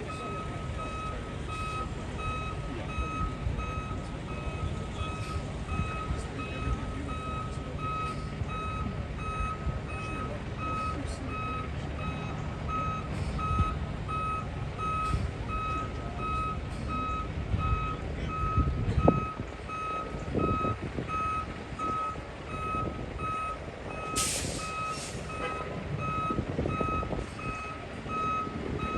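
Concrete mixer truck backing up, its reverse alarm beeping steadily over the low rumble of its diesel engine. Two short hisses of air come about five seconds before the end.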